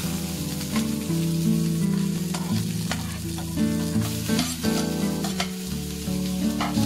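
Food sizzling and frying in a small pan over a wood fire, with short clicks of a utensil against the pan. Chopped green vegetables are tipped into the pan about four seconds in.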